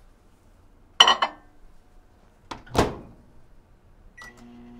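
Over-the-range microwave oven being loaded and started: a measuring cup clinks down inside about a second in, the door thuds shut near three seconds, a keypad beep sounds, and the oven starts up with a steady low hum near the end.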